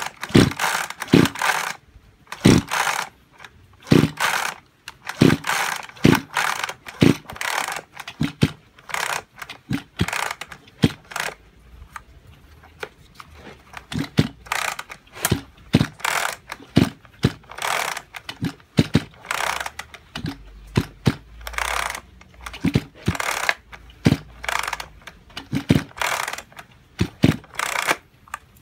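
Kyoritsu two-stroke chainsaw's recoil starter pulled over and over, about one pull a second with a short lull near the middle, the rope whirring as the engine cranks but never fires. The owner puts the failure down to low compression from a seized engine.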